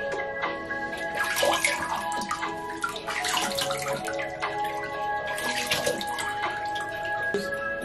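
Shallow bathwater splashing and sloshing in a bathtub as a wet ferret is held and bathed, louder for a moment about a second in, again around three to four seconds, and near six seconds. Background music with steady held notes plays under it.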